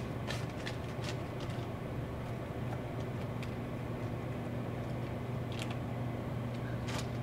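Steady low electrical hum from a snack vending machine and the room around it, with a few faint clicks and crinkles as a dollar bill is handled and pushed into the bill slot, the last ones near the end.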